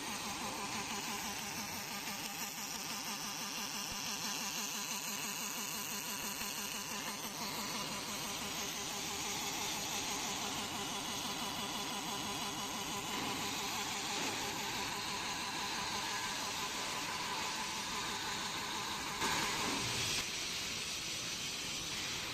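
Longitudinal seam welding machine running: a steady buzz and hiss, with a brief louder rush of noise near the end.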